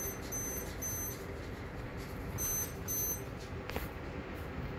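Lightning detector beeping in short, high-pitched beeps about half a second apart, a run at the start and a pair about two and a half seconds in; it beeps twice for every lightning strike within 15 miles. Steady heavy rain hisses underneath.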